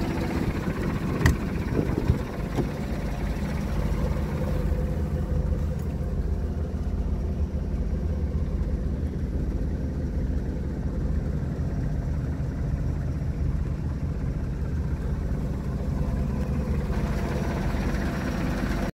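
Gas-powered engine of a Mercedes-Benz 2628G sludge vacuum truck idling steadily, with two sharp clicks about one and two seconds in as the cab door is opened.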